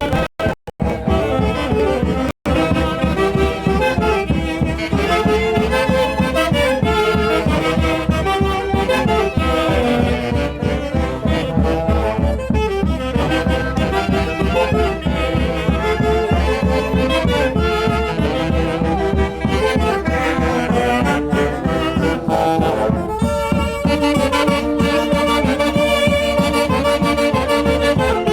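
Live Andean festival orchestra music: saxophones and brass playing a lively melody together over a steady beat. The sound cuts out for a split second a few times in the first couple of seconds.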